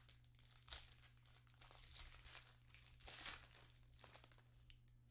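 Plastic wrapper of a Panini Mosaic basketball hanger pack crinkling and tearing in the hands as it is opened, soft and uneven, with a louder flurry about three seconds in. A faint steady low hum runs underneath.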